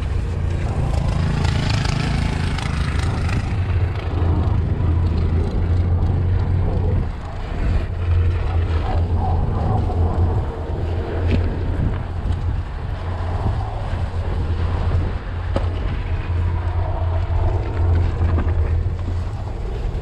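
Steady low rumble of a Jeep Grand Cherokee driving through snow while towing a skier, with wind rushing over the microphone.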